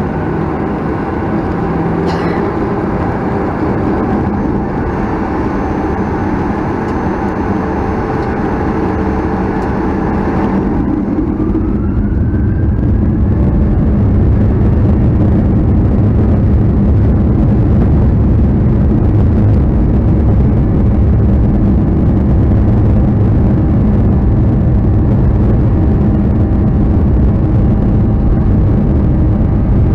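Boeing 737-900ER's CFM56-7B engines heard from the cabin. About 11 seconds in, a whine rises in pitch and the low rumble grows louder and stays steady, as the engines spool up to takeoff thrust.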